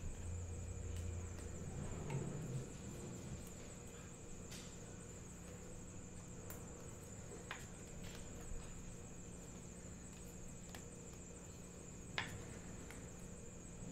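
Trading cards and a clear rigid plastic card holder being handled on a table: light rustling and a few faint, sharp clicks, over a steady faint high-pitched whine and low hum.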